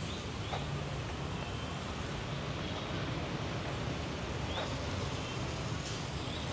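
Steady outdoor background noise with a low rumble, broken only by a few faint short chirps.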